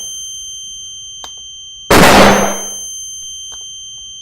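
A loud blast-like burst of noise about two seconds in, fading away over about a second, with a high steady ringing tone lingering after it; a similar burst has just faded at the start.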